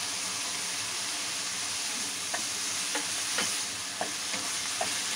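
Shredded cabbage, capsicum and carrot sizzling in a hot wok with a steady hiss. From about two seconds in, a spatula scrapes and knocks against the pan with a few short clicks as the vegetables are stirred.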